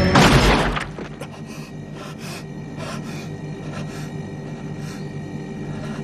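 A sudden loud rushing burst of noise lasting under a second, then a low, tense, sustained drone with soft hissing swells here and there: eerie cartoon sound design.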